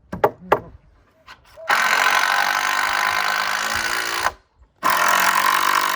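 A couple of sharp knocks, then a power drill runs steadily in two long pulls of about two and a half seconds each, with a short break between them.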